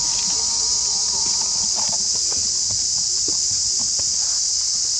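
Steady high-pitched drone of an insect chorus, with faint taps and scuffles from baby monkeys wrestling on stone.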